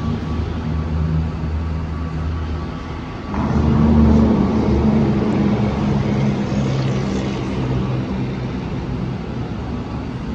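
A vehicle engine running with a low hum. It gets suddenly louder about three seconds in, then holds steady.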